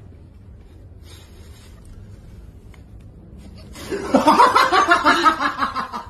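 A person laughing loudly in quick repeated pulses, starting about four seconds in after a quiet stretch.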